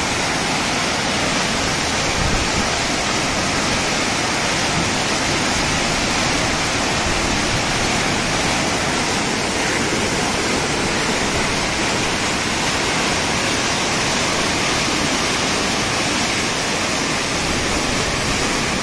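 A river in full flood, muddy water surging and churning past in a loud, steady rush.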